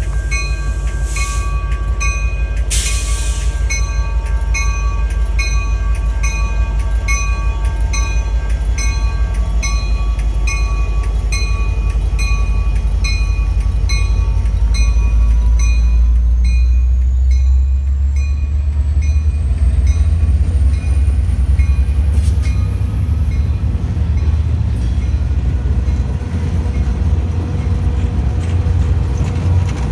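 Diesel train passing, its deep engine rumble growing heavier about halfway through. A bell dings steadily about twice a second through the first half, then stops.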